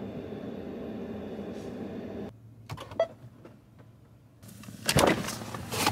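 Steady hum inside the cab of a Ford F-150 Lightning electric pickup while reversing, cutting off about two seconds in. It is followed by a few soft clicks and one sharp click, then two loud rustling knocks near the end.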